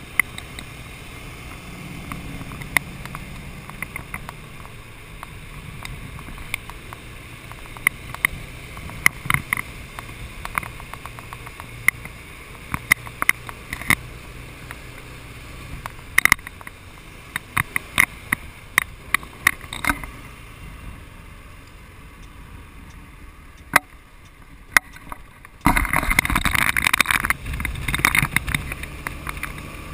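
Motorcycle engine running under way, with frequent sharp clicks and taps. About three-quarters of the way through, a loud rush of wind on the microphone sets in suddenly.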